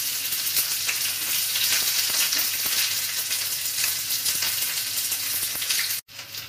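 Sliced onions sizzling in hot oil in a frying pan, a steady crackling hiss. It cuts out abruptly for a moment near the end.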